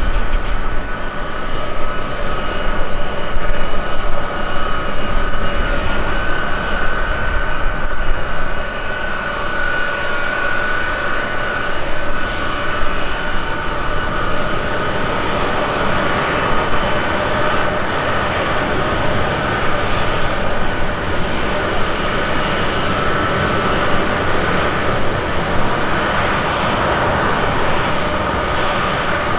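Boeing C-17A Globemaster III's four Pratt & Whitney F117 turbofans running at taxi power: a steady jet whine over a low rumble. The rumble is louder for the first eight seconds or so, then eases to an even level.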